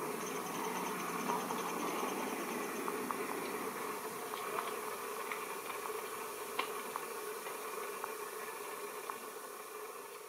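A narrow-gauge diesel-hauled passenger train fading away as it draws off, with scattered faint clicks. Insects chirp high and faint over it, mostly in the first few seconds.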